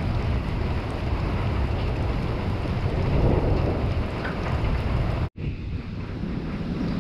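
Wind buffeting the microphone over the steady hiss of heavy rain in a thunderstorm. The sound drops out abruptly for an instant about five seconds in, then carries on with less hiss.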